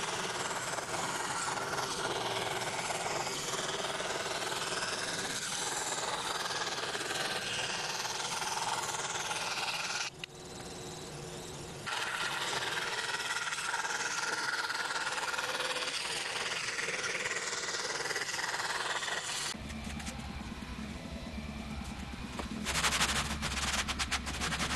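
Scroll saw running with a #7 spiral blade, cutting through birch plywood, briefly quieter about ten seconds in. Near the end the sound changes to a steady low hum with a run of rapid clicking.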